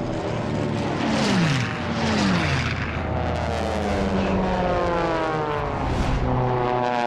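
Piston-engined propeller racing planes flying low past one after another. Each engine drone drops in pitch as it goes by: two quick passes, then a longer one that falls slowly.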